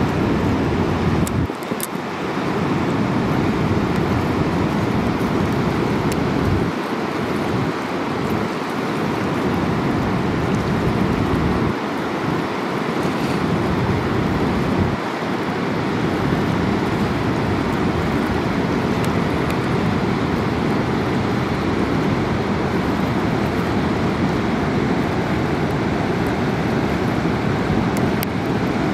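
Steady rushing roar of the upper Niagara River rapids, with wind buffeting the microphone and making the low rumble come and go.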